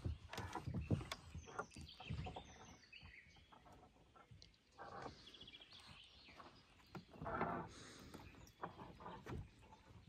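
Footsteps on a country path at a walking pace, with small birds chirping.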